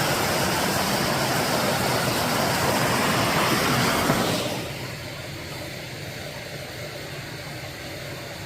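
Steady rush of a mountain stream and waterfall. Just over four seconds in it drops suddenly to a quieter rush.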